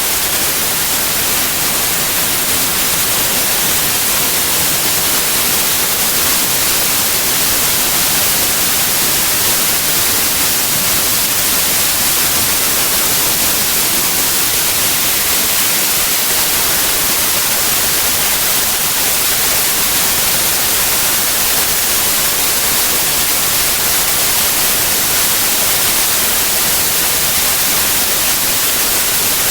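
Steady white noise: an even, unchanging hiss across all pitches, brightest in the highs.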